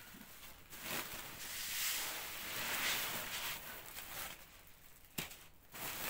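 Cleaned bulgur grain poured from a wooden sieve into a plastic sack: a rushing hiss of grain lasting about three seconds, then a single sharp knock about five seconds in.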